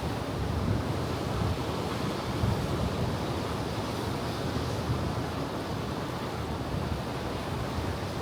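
Ocean surf washing against the shore in a steady wash, with wind buffeting the microphone in a low, uneven rumble.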